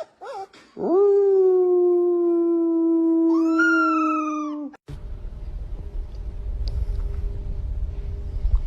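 A dog howling: a short rising-and-falling yelp, then one long steady howl of about four seconds. The howl breaks upward in pitch near its end and stops suddenly. A low rumbling noise follows.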